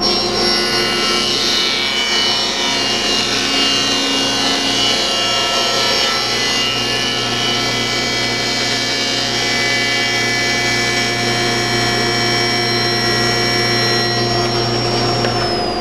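SawStop cabinet table saw running steadily, its raised blade cutting a kerf partway into the plywood base of a crosscut sled as the sled slides through on its hardwood runners.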